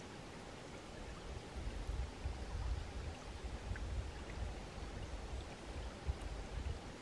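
Small forest brook trickling over stones: a steady rush of running water, with an uneven low rumble underneath that swells and falls.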